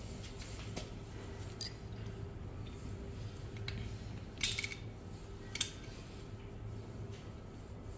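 A few light metallic clinks from tools and small metal parts being handled during disassembly of the electric dirt bike's motor mount, the loudest about four and a half seconds in, over a steady low hum.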